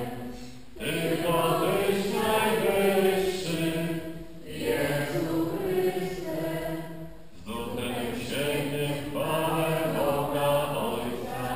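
Congregation singing a liturgical chant of the Mass in phrases of a few seconds, with short breaths between them.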